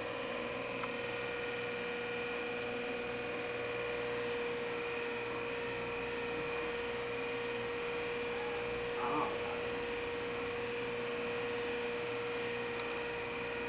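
Steady electrical hum with a constant tone, room tone with nothing else going on, and a brief faint hiss about six seconds in.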